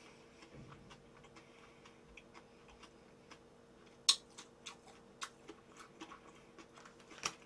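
Chewing food with the mouth closed: scattered soft clicks and smacks, the loudest about four seconds in and just before the end, over a faint steady hum.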